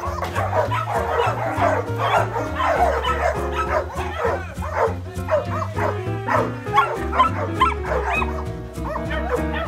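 Background music with a steady bass line, and many dogs barking and yipping over it.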